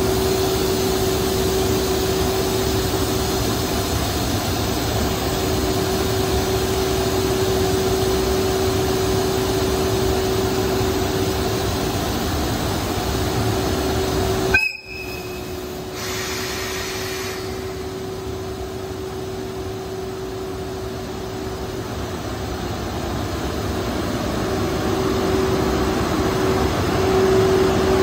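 EF81 electric locomotive standing with a steady hum, then sounding a short, shrill whistle about halfway through as it prepares to depart. Its running sound grows louder near the end as it pulls away.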